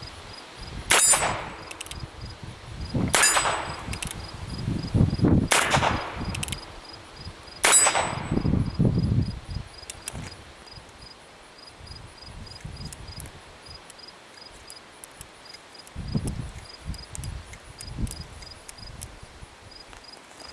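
Colt Frontier Scout .22 LR single-action revolver fired four times, about two seconds apart, each shot followed by the clang of a steel target ringing. After that come faint metallic clicks as the revolver is handled.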